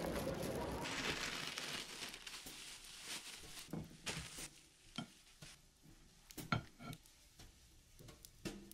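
A steady noisy hiss that fades out over the first two seconds, then scattered light clicks and taps of small objects being handled.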